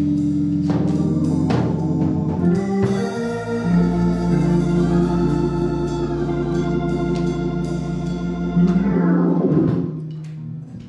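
Live church band music led by a Hammond-style organ holding sustained chords over a deep bass note, with a few light drum hits. The chords change once about three and a half seconds in, and the music fades out near the end.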